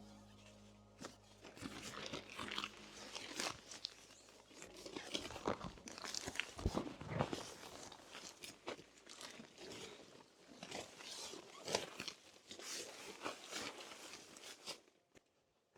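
Close, irregular crunching and rustling: many small clicks and crinkles from something being handled, with a few louder knocks.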